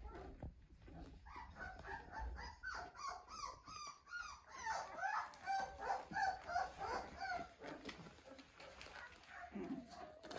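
Several young Australian Shepherd puppies whining, with many short, high calls bending in pitch and overlapping one another. The calls are busiest in the middle and thin out near the end.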